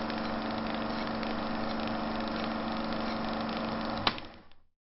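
A steady mechanical drone like an idling engine. It ends in a sharp click about four seconds in and fades out within about half a second after.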